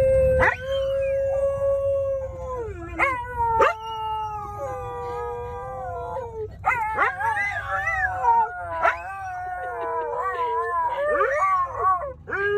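A dog howling: a run of long, drawn-out howls whose pitch wavers and slides, with short breaks between them, over the steady low rumble of a moving car.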